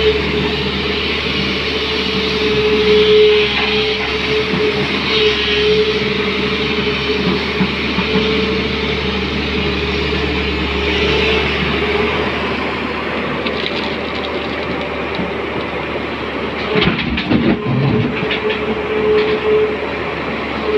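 SANY crawler excavator's diesel engine and hydraulics running steadily up close, with a steady tone over the engine noise as the machine digs. A short burst of knocks and rattles comes near the end.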